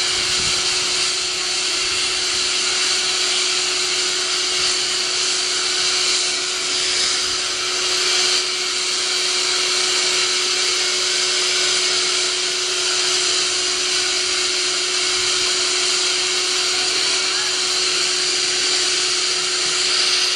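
Shop vacuum running steadily, drawing air through a long flexible hose to suck live bees off the log into a burlap-filtered water-bottle collector. It makes a constant whine over a strong hiss.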